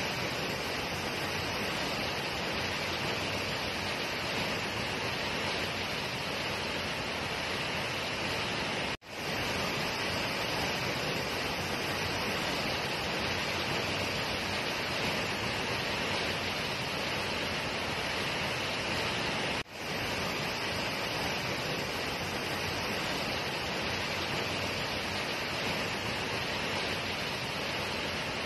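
Tall waterfall plunging into a pool: a steady rush of falling water that cuts out for an instant twice.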